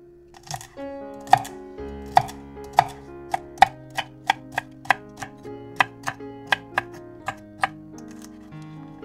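Kitchen knife chopping celery on a wooden cutting board: sharp knife strikes, slow at first, then a quicker run of about three a second that thins out near the end, over background music.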